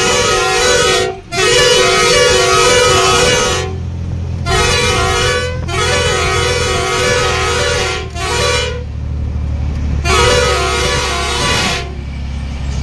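Truck's musical horn playing a short stepping tune over and over in long blasts with brief breaks, honking at a motorcyclist riding in the middle of the road ahead to make him move aside. The truck's engine drones underneath, heard in the pauses; the horn stops near the end.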